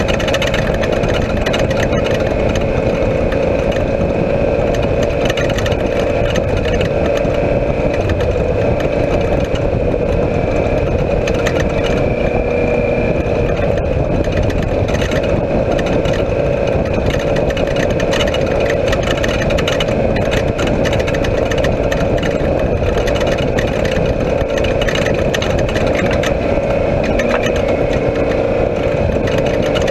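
Off-road race vehicle heard from inside its cockpit while driving on a dirt road: a loud, steady engine drone mixed with road noise and frequent small clicks and rattles.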